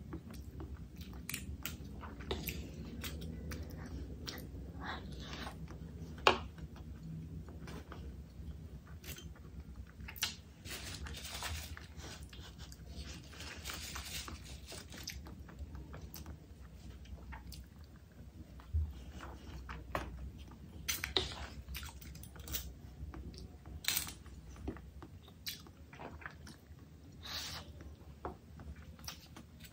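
Close-miked eating: a person chewing and biting food, with irregular crunches and mouth clicks throughout, and one sharp, louder click about six seconds in.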